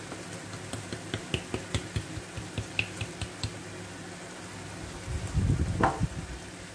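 Spice jar with a shaker cap being shaken over a frying pan, giving a quick run of light clicks, about three or four a second, then a louder knock about five seconds in.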